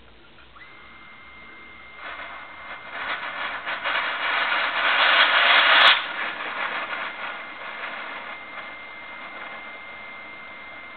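A rush of hot water and steam spurting from the outlet of a solar-heated water loop builds over a few seconds, then cuts off sharply about six seconds in and leaves a fading hiss. A steady high whine runs underneath from just after the start.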